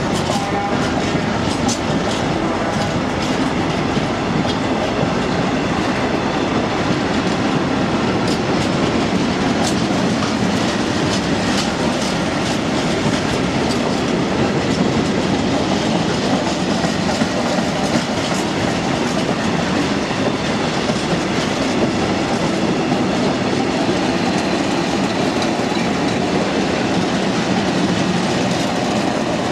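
Freight train of covered sliding-hood wagons rolling steadily past, a continuous rumble and rattle with the wheels clicking over the rail joints.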